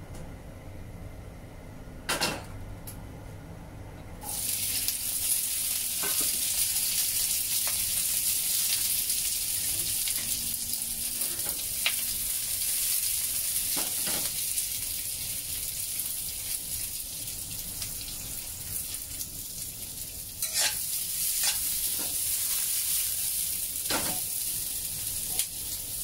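Sliced onions frying in a little oil in a wok: a sizzle that starts suddenly about four seconds in and runs on steadily, with a few knocks and scrapes of a spatula against the wok as the onions are stirred.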